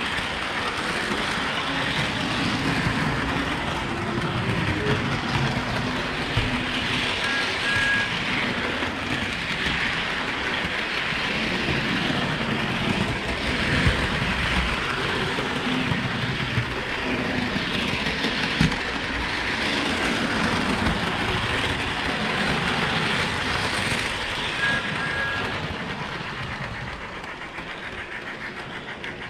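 HO-scale Thomas the Tank Engine model train running along its track, a steady whir and rattle of motor and wheels heard close up from a coach it pulls. It grows quieter near the end.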